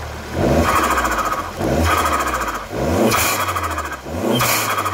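Alfa Romeo MiTo Quadrifoglio Verde's 1.4 turbo MultiAir four-cylinder blipped from idle four times, the revs rising and falling each time. Each blip is followed by a hiss from the stock blow-off (dump) valve venting boost as the throttle closes.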